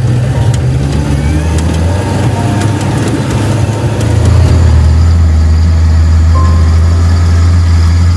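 Motor vehicle engine running with a loud, steady low drone that drops in pitch about four seconds in.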